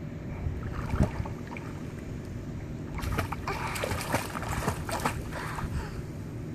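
Pool water splashing and sloshing as a small child paddles in arm floats, with small irregular splashes that grow busier about halfway through.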